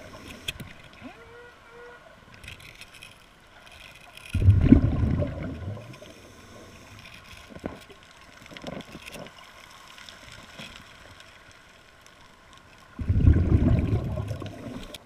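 A scuba diver's exhaled breath bubbling out of the regulator underwater, twice, about eight seconds apart, each burst lasting about two seconds. Faint clicks and ticks come in between.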